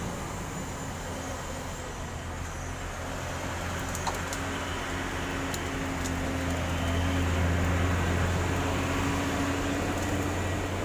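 Truck-mounted crane's diesel engine running steadily under load as it hoists a wrecked truck, a low drone that grows louder about two-thirds of the way through. One short click about four seconds in.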